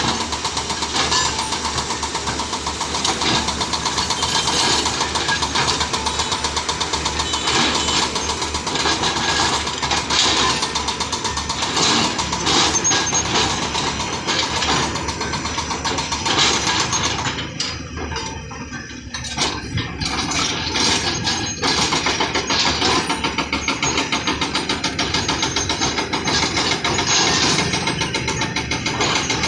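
Excavator diesel engine running under load, a dense rapid clatter that dips briefly about eighteen seconds in, then comes back.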